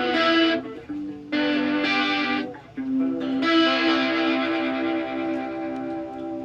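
Electric guitar played through a Mosky distortion pedal: three chords struck in turn, the last left ringing and slowly fading.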